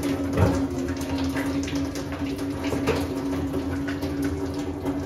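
Faint metallic knocks and clicks as a plumber works on a wall-mounted kitchen mixer tap, over a steady hum that stops near the end.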